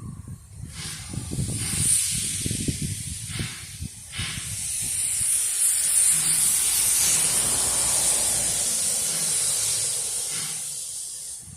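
Puffing Billy narrow-gauge steam locomotive venting steam: a long, loud hiss that builds about two seconds in, holds strongly through the middle and fades away near the end. A few short puffs come before the hiss swells.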